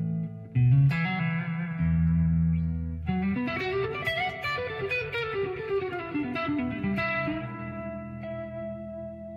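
Electric guitar, a King Bee Strat with Lollar pickups, played through a 3 Monkeys Sock Monkey 18 amp: two struck chords, then a quick run of single notes that climbs and then falls in pitch, ending on a chord left to ring and slowly fade.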